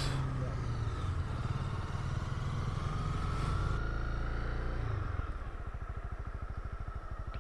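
2020 Honda CB300R's single-cylinder engine running under light throttle, then dropping to a steady, evenly pulsing idle about five seconds in.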